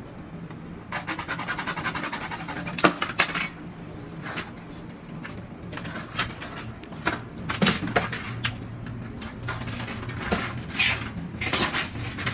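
Hard plastic PPR pipe and hand tools knocking and clinking as they are handled and set down: a string of sharp, irregular clicks and clacks.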